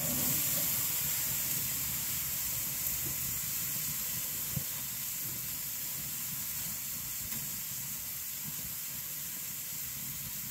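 Ribeye steaks searing on a charcoal grill grate over burning wood: a steady sizzling hiss that eases off slightly.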